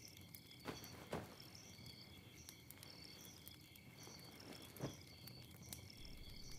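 Faint night-time woodland ambience: crickets chirping in a steady repeating pattern. There are a few short soft noises about a second in and again near five seconds.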